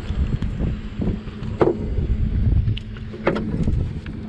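Wind buffeting the microphone aboard a small boat at sea, with two sharp knocks about a second and a half and three seconds in.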